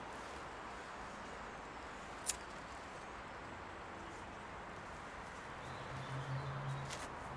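A single sharp click of a cigarette lighter about two seconds in, over a steady quiet outdoor background; a low hum comes in near the end.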